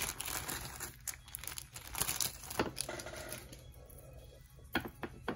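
Crinkling and rustling of small packaging as a jewelry item is unwrapped, busiest in the first second or so and thinning to faint rustles, with a couple of sharp clicks near the end.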